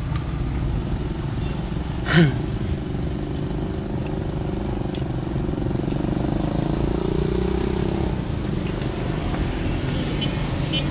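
Steady low rumble of a running engine. About two seconds in there is one short, loud squeak that falls in pitch.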